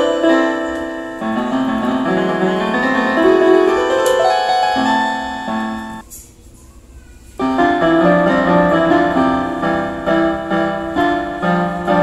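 A Global GL444 electronic keyboard's piano voice playing a melody over chords. About six seconds in the music stops for over a second, then another short piece starts.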